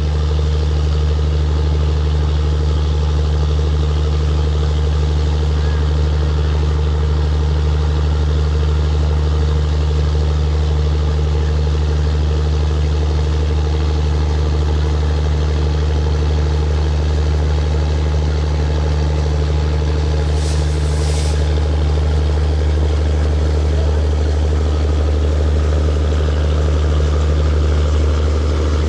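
Diesel locomotive engine idling, a steady deep hum that does not change pitch, with a brief faint hiss about twenty seconds in.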